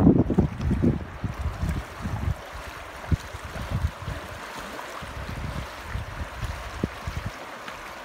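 Shallow river flowing over rocks: a steady rush of riffling water. Wind buffets the microphone at first and dies away after about two seconds.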